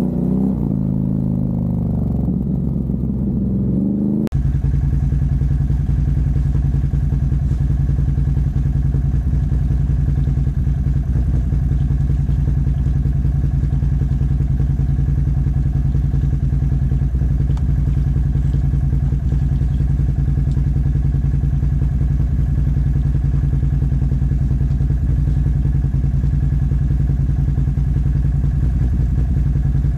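ATV engine idling steadily, a low even drone. It begins with an abrupt cut about four seconds in, before which a shifting, pitched sound plays.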